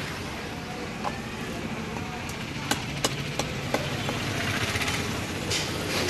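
A large curved fish-cutting knife chopping fish on a wooden log block: a sharp knock about a second in, then four quick knocks about three a second, over a steady background rumble.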